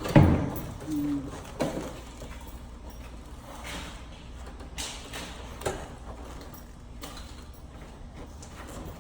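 Work noise from handling heavy cable and tools: a few separate knocks and clunks, the loudest just after the start, over a steady low hum.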